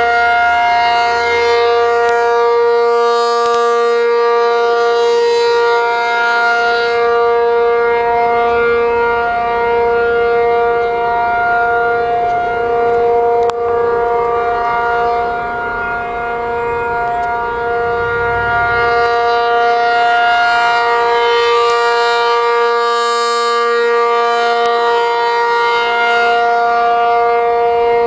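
ACA P-50 rotating outdoor warning siren sounding a tornado-drill alert as a steady tone at one held pitch. Its sound swells and fades twice as the siren head turns.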